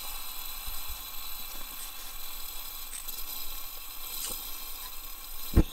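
A handheld lighter struck several times at a liquid-fuel camp stove's burner, faint separate clicks over a steady hiss, then one loud low thump near the end.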